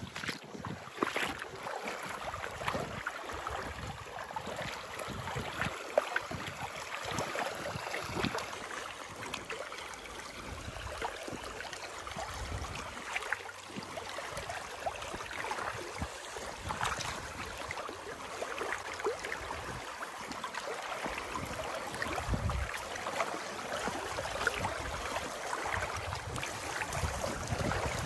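Several people wading through a shallow creek in waders: steady, irregular splashing and swishing of water around their legs with each step.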